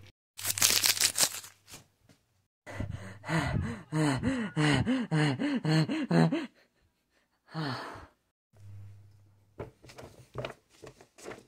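A voice making a string of short wordless sounds, each one rising and falling in pitch, for about four seconds, after a burst of rustling in the first two seconds. Light scratches and clicks follow near the end.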